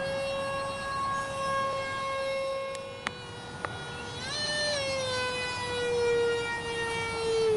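Electric ducted-fan unit of a 50mm RC F-22 Raptor model jet whining in flight, a steady high pitch that steps up briefly about four seconds in and then slowly sinks. Two short clicks sound around three seconds in.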